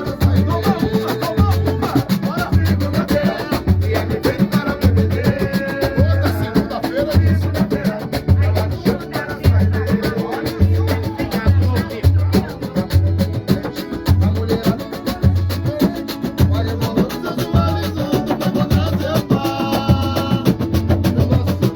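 Samba-pagode band playing an instrumental passage: a deep bass-drum beat a little faster than once a second under busy hand percussion and pitched instrument lines.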